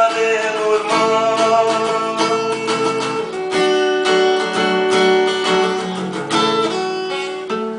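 Background music: strummed acoustic guitar chords playing the song's instrumental ending, with no singing.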